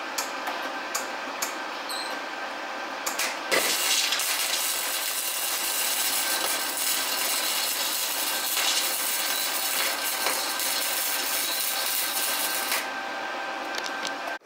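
Wire-feed (MIG) welder welding a bracket: scattered short crackles for the first few seconds, then a steady, smooth crackling hiss of a continuous bead for about nine seconds that stops shortly before the end.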